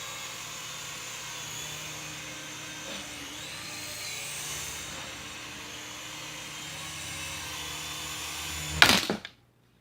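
Small indoor toy helicopter's electric motor and rotors whirring steadily while it flies, the pitch wavering a little with the throttle. About nine seconds in comes a loud sharp knock, and the motor stops.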